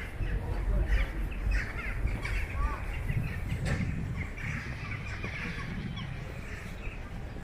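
Outdoor ambience of birds calling repeatedly over a steady low rumble.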